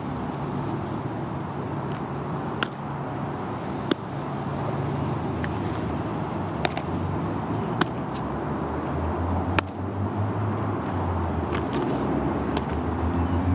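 Baseball smacking into leather gloves during a game of catch, several sharp smacks a second or two apart, over a steady low engine-like rumble that grows heavier in the second half.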